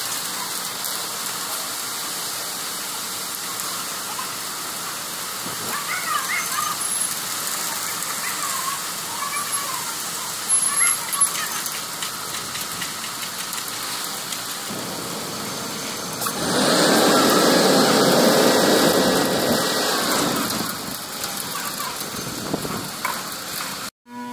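Wet concrete pouring down a ready-mix truck's chute and spreading over the slab, a steady rushing like rain, over the truck running. It gets louder for about four seconds past the middle.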